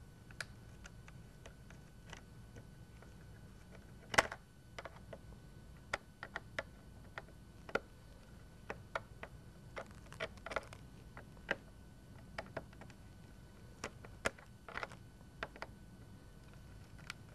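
Small flathead screwdriver tightening a screw in a retaining clip on a metal sectional picture frame: faint, irregular metallic clicks and ticks as the blade turns in the slot, with one louder click about four seconds in.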